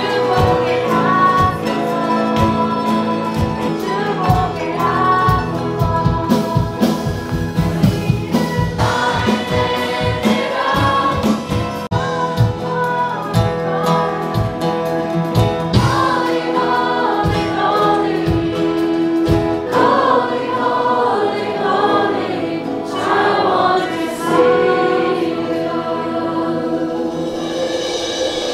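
A group singing a worship song together with acoustic guitar and a steady beat; the beat drops out about twenty seconds in and the singing carries on.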